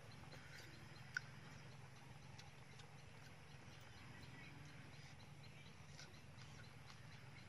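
Near silence: a faint steady low hum with scattered small ticks, and one short sharp click about a second in.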